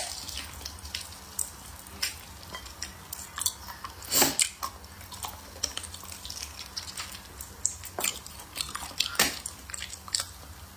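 Close-miked eating: chewing and biting with many small clicks, the loudest bites about four seconds in and again near nine seconds.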